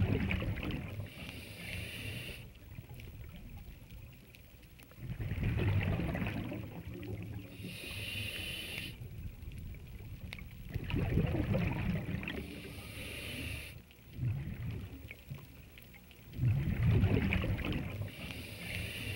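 Scuba diver breathing underwater through a regulator: four breaths, each a low rumble of exhaled bubbles followed by a short hiss of inhalation, about every five and a half seconds.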